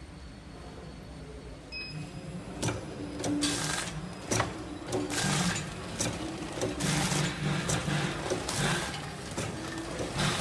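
Automatic potato chip and popcorn packaging machine running: its mechanism clacks again and again, with repeated bursts of hiss. It gets louder about two seconds in.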